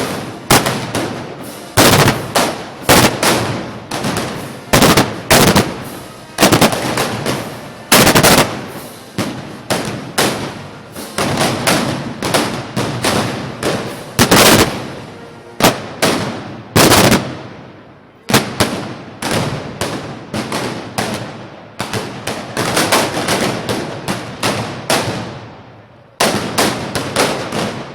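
Black-powder arquebuses being fired in quick irregular succession: loud sharp shots, sometimes several close together, each with an echoing tail.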